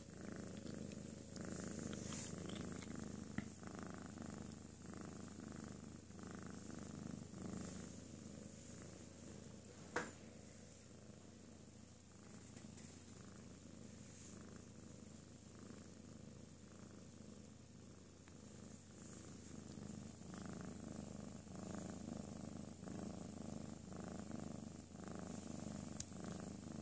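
A domestic cat purring quietly and steadily in an even, repeating pulse as it settles to nap. A single sharp click comes about ten seconds in.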